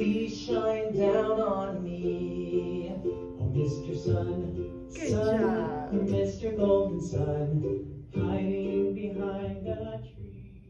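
A children's song playing from a video over the classroom speaker: singing over plucked-string accompaniment. It fades out near the end as the video is stopped.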